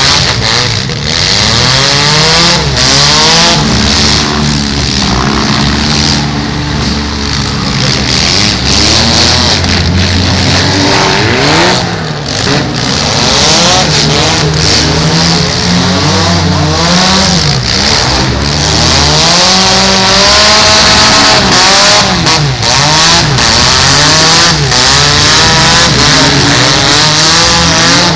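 Several compact-car engines revving hard in a demolition derby, their pitches rising and falling over one another, with knocks of the cars ramming each other.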